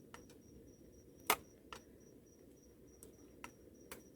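Faint insect chirping in a fast, even pulse, with a few sharp clicks and knocks scattered through, the loudest just over a second in.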